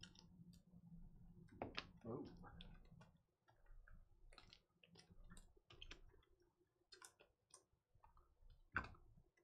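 Faint, irregular clicks and taps from a computer keyboard and mouse, with one sharper click near the end.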